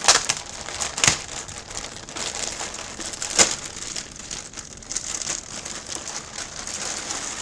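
Wrapping around a boxed memorabilia jersey crinkling and rustling as it is handled and unpacked, with three sharp crackles, the loudest about three seconds in.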